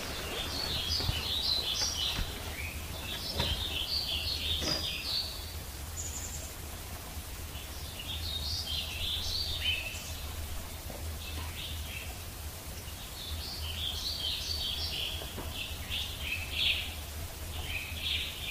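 Songbirds chirping in quick jumbled phrases of about two seconds, repeated every four to five seconds, over a steady low rumble.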